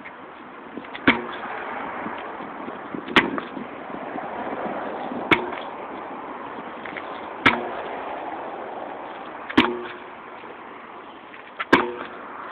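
Sledgehammer striking a tire in a workout: six heavy blows about two seconds apart, several with a brief ring after the hit.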